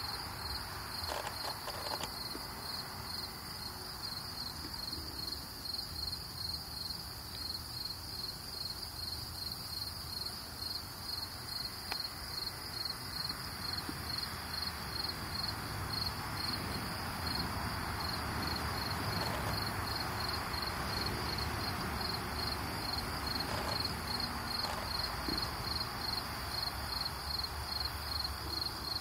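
Crickets chirping in a steady, even, high-pitched rhythm over a low, steady background noise.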